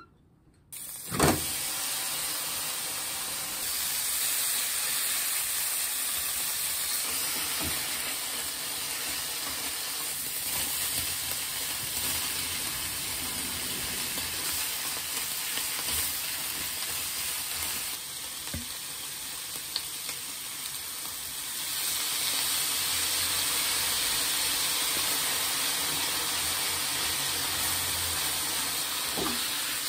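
Meat and napa cabbage frying in a hot frying pan: a steady sizzle that starts suddenly about a second in as the food goes into the pan. A few knocks of the spatula against the pan are heard, and the sizzle grows louder past the middle as it is stirred.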